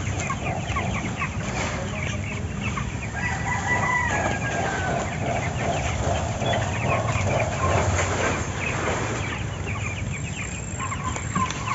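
Chickens clucking and calling in short notes throughout, with one rooster crow about three seconds in.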